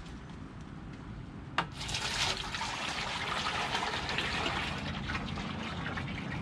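A sharp knock about a second and a half in, then liquid running steadily.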